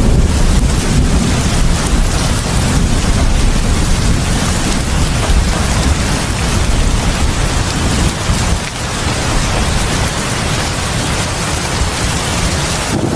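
Heavy rain pouring steadily, with a deep low rumble underneath that eases a little about two-thirds of the way through.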